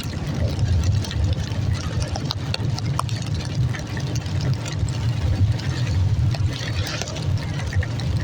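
Rain and splashing, trickling water over a steady low rumble, with scattered small drip-like ticks.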